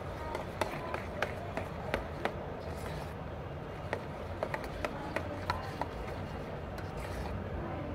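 Metal spoon stirring a thick cream and condensed-milk mixture in a stainless steel bowl: irregular light clicks and scrapes of the spoon against the steel, over a steady low background noise.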